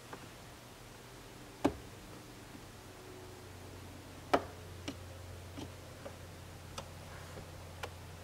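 Scattered sharp taps and clicks of a plastic card squeegee and fingertips against a car's infotainment screen while smoothing a wet screen protector into place, with two louder clicks about one and a half and four and a half seconds in. A low steady hum runs underneath.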